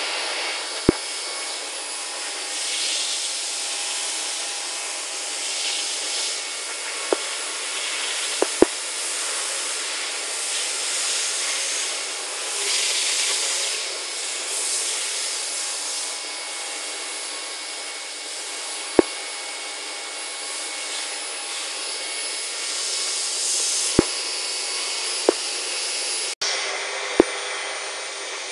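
CNC milling machine running inside its enclosure: a steady hiss with a few faint steady whines, swelling now and then, and sharp ticks here and there.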